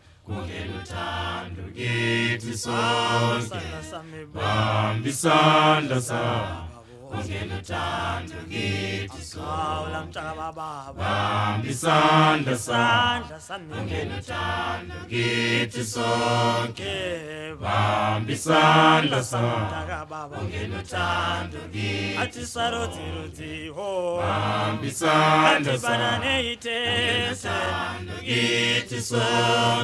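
Background music: a group of voices singing a song in isiZulu, with a steady pulse.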